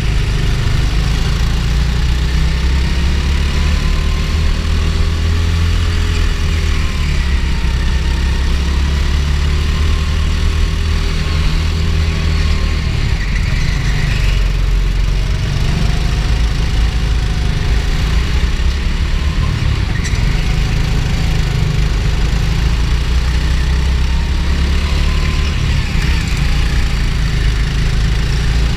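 Go-kart engine running continuously from the driver's seat, a steady low drone whose pitch rises and falls gently with the throttle through the corners.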